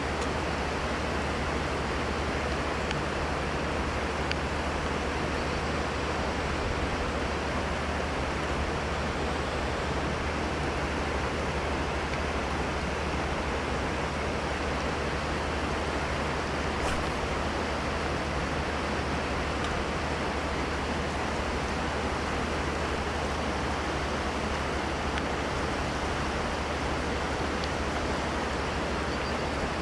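Steady rushing of river water, an even noise with no change in level.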